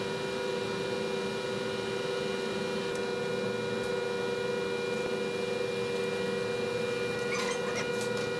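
Steady electrical hum made of several constant tones, with a few faint clicks and knocks near the end.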